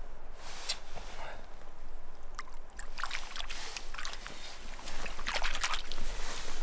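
Small splashes and sloshing of shallow stream water as a brown trout is held in the current and let go from a landing net, over the steady run of the stream. The splashes come in a scatter from about halfway and are thickest near the end.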